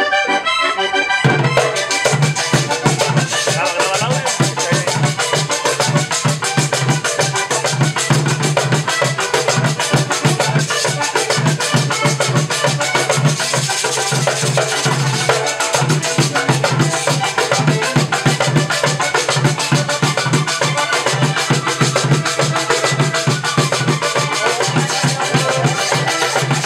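Vallenato music: a button accordion playing a lively tune over steady percussion, with a low bass coming in about a second in.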